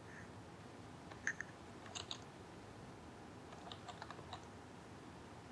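Computer keyboard keys pressed as shortcuts: a few faint clicks about a second in, a pair around two seconds, and a short cluster near four seconds.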